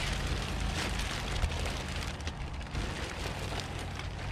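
Black plastic trash bag rustling and crinkling as it is handled and lifted.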